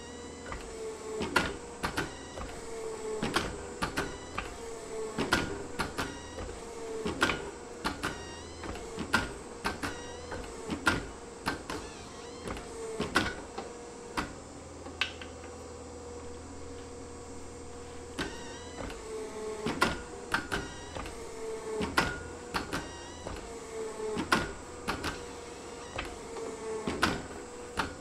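Forging press squeezing a red-hot bearing-ball Damascus billet in repeated strokes, about one every two seconds. Each stroke brings metallic clanks and a falling whine over a steady machine hum, with a pause of a few seconds midway.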